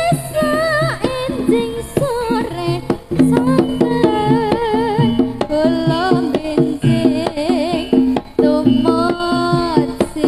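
Live Javanese jaranan music: kendang hand drums beating under a wavering, vibrato-laden sung melody.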